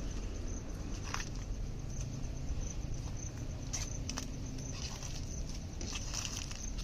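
Outdoor ambience on a walk: a steady high insect trill, with scattered crackles and rustles of footsteps on the ground over a low rumble of wind.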